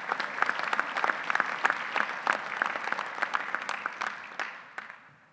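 Audience applauding: dense clapping that thins out and stops about a second before the end.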